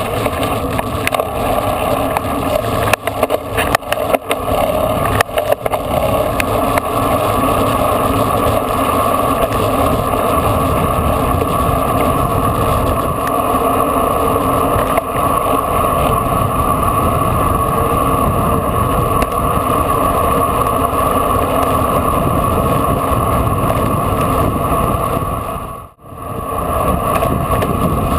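Wind rushing over the microphone of a bike-mounted camera on a fast road-bike descent: a steady, loud rush, choppier for the first few seconds and dropping out briefly near the end.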